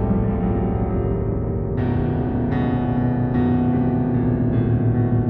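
Slow keyboard music with an electric-piano sound: long sustained notes and chords ringing on, with a few new chords struck from about two seconds in.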